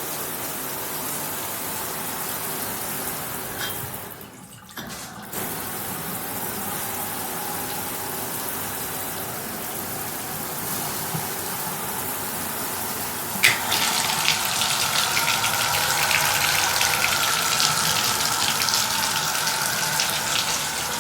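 Water running from a tub and shower faucet set, a steady rush that dips briefly about four seconds in. About thirteen seconds in there is a sharp click and the flow turns louder and hissier, full of fine spattering.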